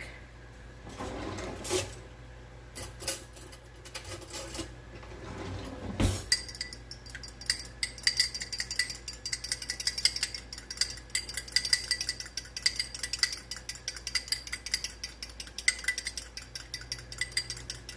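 A fork beating a raw egg in a bowl: rapid, steady clinking of metal against the bowl. It starts after a sharp knock about six seconds in, with a few scattered clatters before it.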